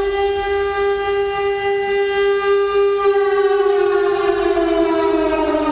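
Air raid siren wailing for an air alert. It holds a steady high tone, and about halfway through a second tone splits off and slides lower while the first keeps sounding.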